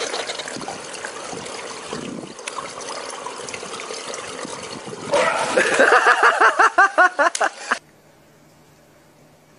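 Swimming-pool water trickling and lapping in a steady watery hiss. About five seconds in, a louder run of rapid, rhythmic vocal sounds breaks in for nearly three seconds, then cuts off abruptly to a faint low hum.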